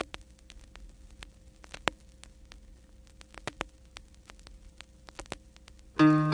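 Vinyl record surface noise: scattered clicks and a few louder pops over a faint steady hum. Near the end, strummed acoustic guitar music begins.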